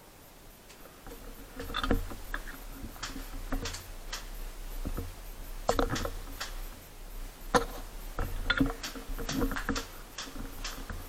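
Irregular rustling with scattered sharp clicks and taps, a few of them louder.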